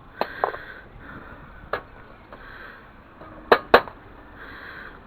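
Light metallic clinks and knocks as metal pieces are handled: a few sharp strikes, the two loudest close together about three and a half seconds in.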